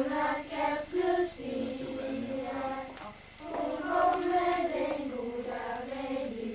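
A group of children singing a Lucia procession song together, in held notes that step from pitch to pitch, with a short pause for breath about three seconds in.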